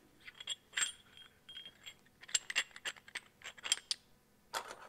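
Steel PTO gears and clutch ring clinking against each other as they are handled and fitted together: a string of irregular, sharp metallic clicks that ring briefly.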